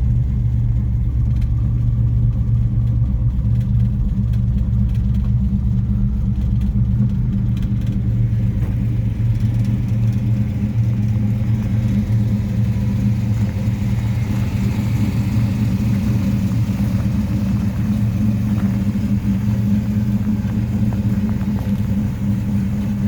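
1966 Plymouth Barracuda's 273 Commando V8 running steadily at high idle as it warms up.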